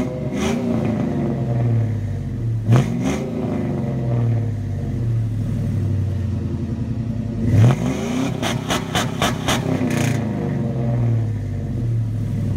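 2001 Chevy 1500's 4.8 L V8, with its catalytic converters removed and a Flowmaster 40 Series muffler fitted, revved while parked: quick blips at the start and about three seconds in, then a longer rev a little past halfway. That rev stutters about six times a second against the 4,000 rpm park/neutral rev limiter before falling back to idle.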